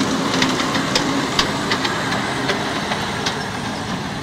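Ride-on miniature railway train passing close by: the small locomotive running steadily while its wheels click sharply over the track a few times a second, slowly fading as it moves away.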